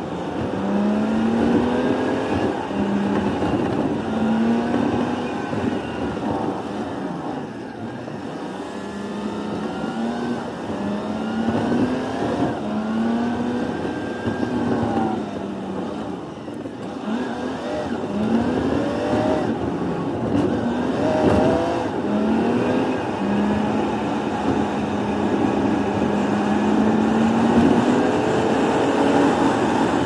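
Volvo FM truck's engine heard from inside the cab, played back fast for a time-lapse, so its note sweeps up and down over and over. It settles into a steadier note near the end.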